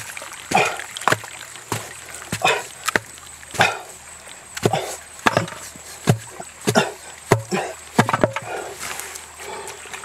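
Machete blade chopping into a wet mud bank: a series of uneven wet strikes, roughly one every half second.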